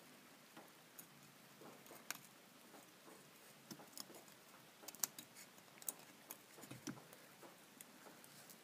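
Faint, irregular clicks and scrapes of a steel retaining ring (circlip) being worked by hand into its groove in a front steering knuckle, seating it behind a newly pressed-in hub bearing.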